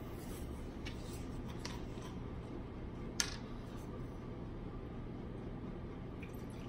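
Quiet room tone with faint handling sounds, a couple of light ticks, and one sharp click a little over three seconds in.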